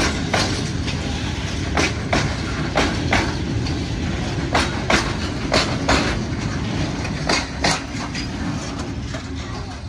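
Freight train of open wagons passing slowly, with a steady low rumble and the wheels clacking over rail joints in quick pairs about once a second. The clacks stop and the rumble fades near the end as the last wagons roll away.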